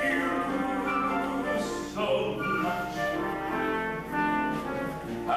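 Live theatre orchestra playing a show-tune passage, with several instruments holding notes that change every second or so.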